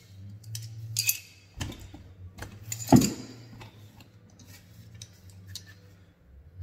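Metal hand tools clinking and knocking as they are handled and taken out of a tool bag: a string of separate clicks, with the loudest knock about three seconds in.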